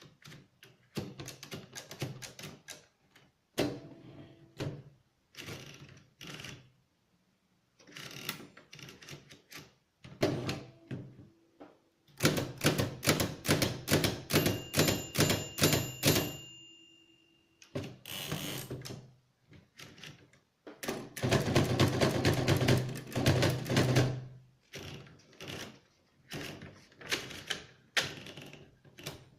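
Hammond No. 12 typewriter with the curved Ideal keyboard being typed on. Its keystrokes click in irregular groups, with two long fast runs of strokes and short pauses between.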